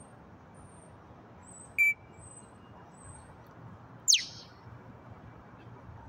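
African grey parrot calling: a short, shrill beep-like note about two seconds in, then a loud whistle that slides steeply down in pitch about four seconds in.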